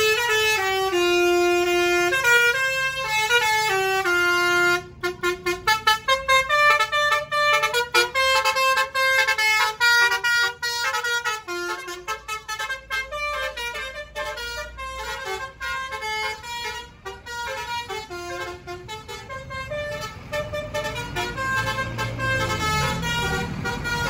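Indonesian bus 'basuri' musical horn playing a tune: several held notes stepping in pitch, then from about five seconds in a fast run of short clipped notes. The notes thin out near the end, under a low engine rumble.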